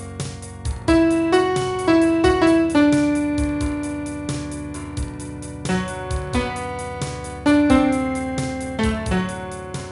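Keyboard music in a piano sound: a slow melody of single notes that ring and die away over a bass line, with a light steady beat behind it; it grows gradually quieter toward the end.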